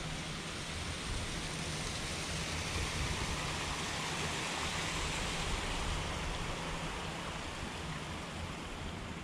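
Running water, a steady rushing hiss that swells in the middle and eases toward the end, over a low steady hum.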